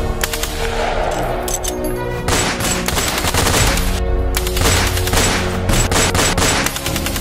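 Several bursts of rapid gunfire layered over music with steady held notes and a low bass.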